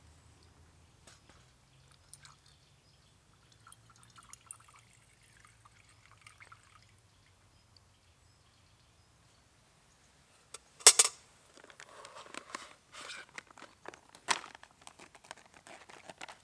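Methylated-spirit fuel poured from a safety fuel bottle into an alcohol burner inside a titanium wood stove. A sharp click comes about eleven seconds in, then several seconds of uneven pouring. The first half holds only faint handling ticks.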